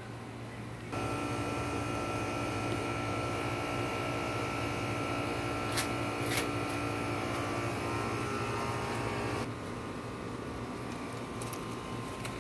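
Steady machine hum with several steady whining tones. It starts abruptly about a second in and stops abruptly near the end, over a low hum that runs throughout, with two sharp clicks in the middle.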